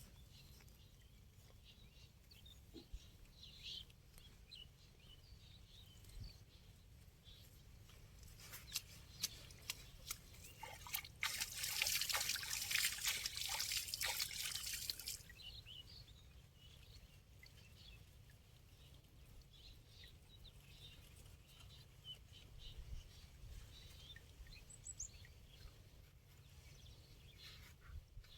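Water dripping and trickling, with a louder burst of splashing from about twelve to fifteen seconds in. Birds chirp faintly.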